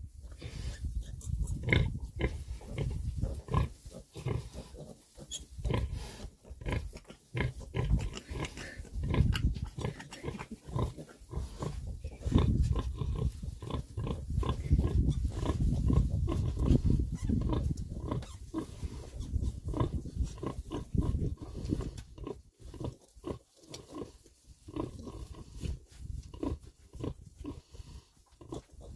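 Oxford Sandy and Black sow grunting over and over in short, low grunts while her piglets suckle: the nursing grunts a sow makes during a feed. The grunts come thickest and loudest in the middle stretch.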